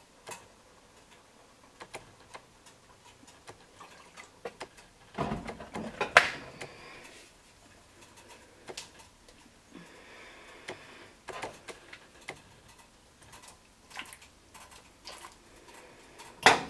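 Handling noises at a stainless steel pot of dye: scattered small clicks and taps, with a louder knock and rustle about five seconds in.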